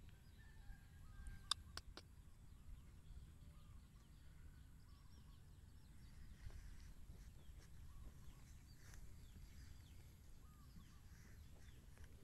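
Near silence: faint outdoor ambience with a low rumble and scattered faint bird chirps, and two sharp clicks close together about a second and a half in.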